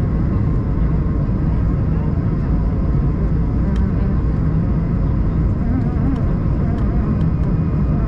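Steady cabin noise inside an Airbus A220-300 airliner: a constant rush of engine and airflow sound, with faint steady tones over it and no change in level.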